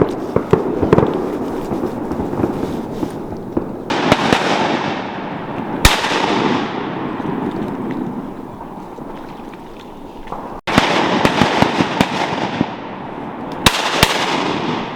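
A ragged volley of shotgun blasts from several hunters firing at ducks, single shots several seconds apart and then a quick cluster near the end, each followed by a long rolling echo.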